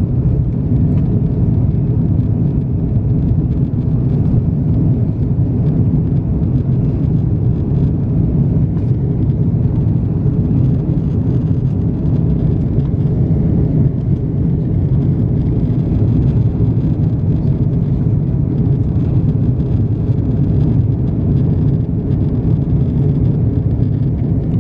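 Steady low rumble of an Airbus A330-200's engines and airflow heard inside the passenger cabin in flight.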